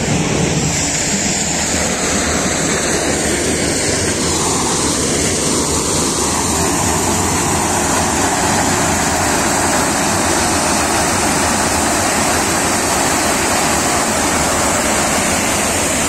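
Tractor-driven Sonalika maize thresher with a 64-inch drum, shelling maize cobs. It gives a loud, steady noise, with the low hum of the powering Sonalika 32 hp tractor engine underneath.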